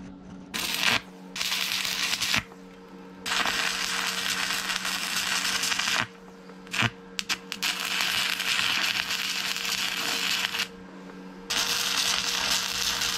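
Electric arc welding on a steel plate: five runs of crackling, sputtering hiss lasting from under a second to about four seconds each, with short pauses between them as the plate is tacked and welded on.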